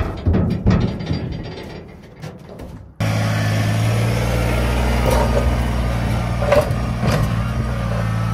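Knocking and clattering in a steel dumpster for about three seconds, then, after an abrupt cut, a Kubota BX23S compact tractor's three-cylinder diesel engine running steadily.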